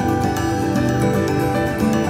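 Background music: calm new-age style track with many held notes and regular plucked notes.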